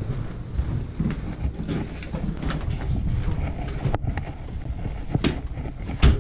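Footsteps and rubbing handling noise from a body-worn action camera, with a few sharp clicks and knocks; the loudest knock comes near the end.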